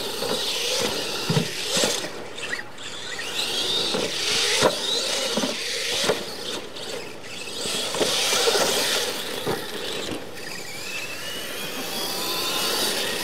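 Radio-controlled monster trucks racing on a dirt track: their electric motors whine, rising and falling in pitch with the throttle, over the hiss and grit of tyres on loose dirt. Several sharp knocks come as the trucks hit and land off the ramps.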